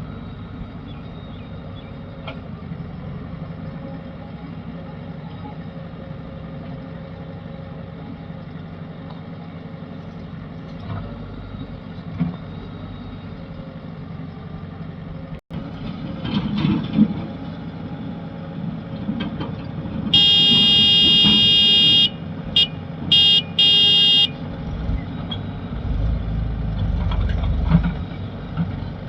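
Heavy machinery engines running steadily. More than halfway in, a vehicle horn sounds for about two seconds, then gives three short toots.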